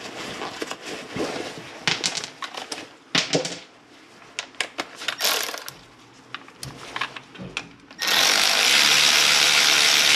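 Light metallic clicks and taps as the brake-hose banjo bolt, with its new crush washer, is threaded into the caliper. About eight seconds in, a power ratchet runs steadily for about two seconds to run the bolt down, then cuts off suddenly.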